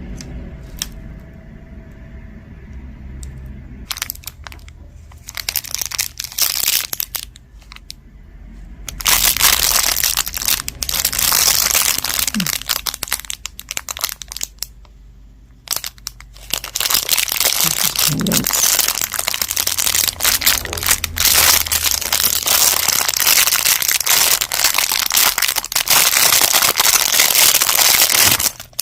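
Packaging crinkling loudly as it is handled and opened by hand, after a few scattered clicks and rattles. It pauses briefly about halfway, then starts again.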